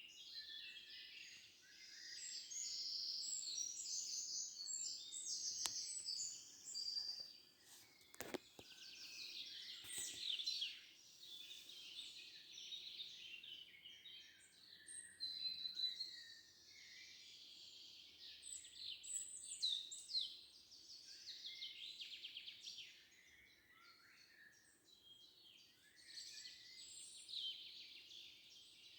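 Several songbirds singing at once in a forest: dense, overlapping chirps and trills that go on throughout, with a few brief clicks about a third of the way in.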